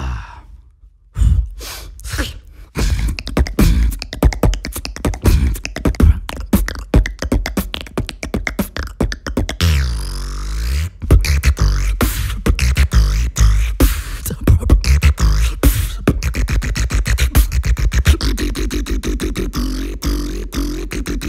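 A beatboxer performs a fast, dense beat of mouth clicks and percussive hits over deep vocal bass, with a swooping bass glide about ten seconds in.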